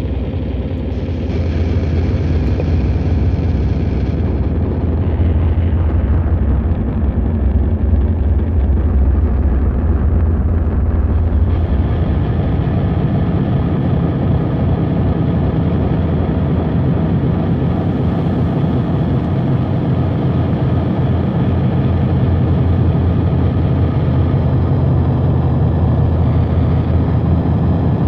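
Dark-ambient noise drone: a dense, unbroken wall of electronic noise with a heavy low rumble and layered humming tones beneath a hiss. About 12 seconds in the deepest rumble thins and a higher droning hum comes forward.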